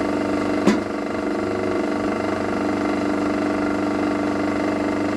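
Belt-driven SIP F2820 floor-standing pillar drill running steadily at speed, its motor and belt drive giving a constant hum while the annular cutter spins free above the work, not yet cutting. A single sharp click comes about two-thirds of a second in.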